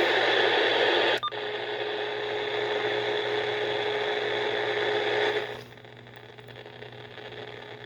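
Static hiss from a Uniden radio receiver, broken by a click about a second in. A steady hum then runs under the hiss until it drops to quieter static about five and a half seconds in.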